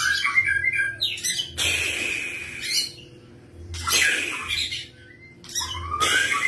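Juvenile white-rumped shama (murai batu trotol) singing in about four short bursts, each mixing rising whistled notes with harsh, raspy notes, separated by brief pauses.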